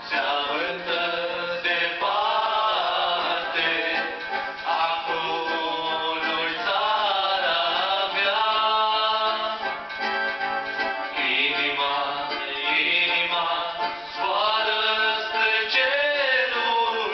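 Two men singing a song together into microphones.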